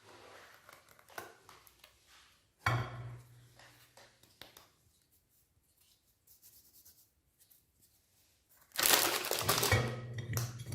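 Meat grinder running in two short bursts with a low hum and a crunching noise, once about three seconds in and again for a second and a half near the end, as frozen ice cream bars are ground.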